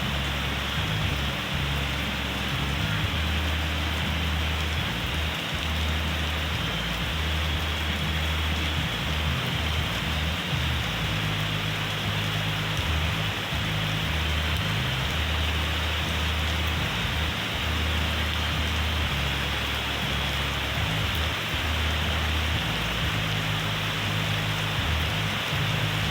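Steady rain falling, a continuous even hiss, with an uneven low rumble underneath.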